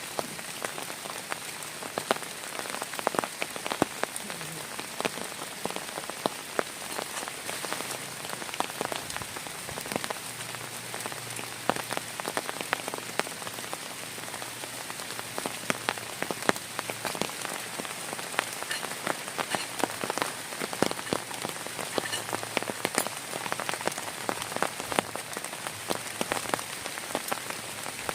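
Heavy rain falling steadily, with many sharp, irregular taps of single drops striking a surface close by.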